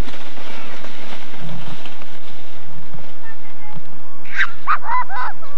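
A steady hiss, then about four seconds in a child's short high-pitched squeals and calls, several in quick succession.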